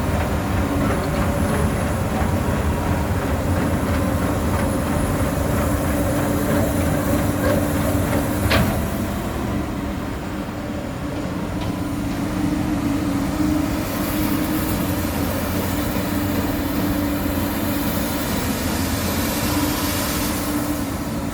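Komatsu PC200 amphibious excavator with its diesel engine running at a steady hum. One sharp knock about eight seconds in.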